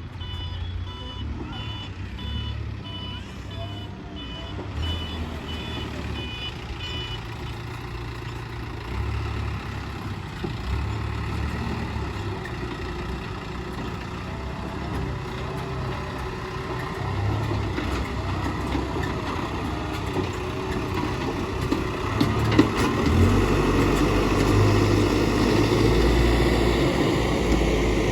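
Case 770EX backhoe loader's diesel engine running under work, with a reversing alarm beeping repeatedly for the first several seconds. The engine grows louder near the end.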